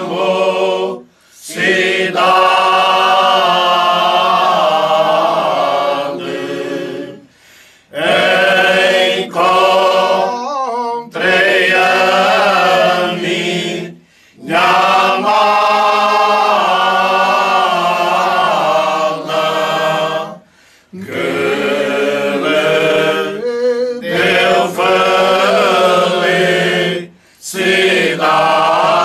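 Unaccompanied choir, mainly men's voices, singing cante alentejano, the traditional Alentejo choral song: long, slow, drawn-out phrases in several voices. Each phrase lasts about six seconds, with short breaks between them, five in all.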